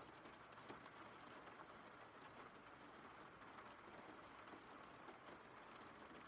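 Faint, steady rain ambience, an even patter with scattered raindrop ticks.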